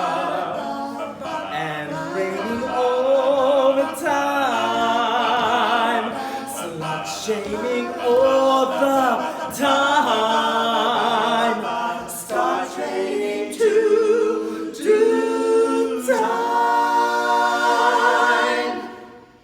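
Male a cappella quartet singing in close harmony, a soloist over three backing voices with wide vibrato. It builds to a long held final chord that cuts off just before the end.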